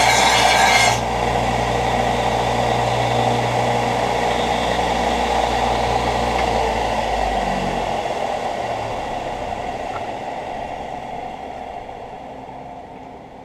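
Belt grinder grinding a steel blade made from an old scythe blade, with a harsh hiss that stops suddenly about a second in as the blade is lifted off the belt. The grinder motor and belt then run on and wind down, their hum dying away over the last several seconds.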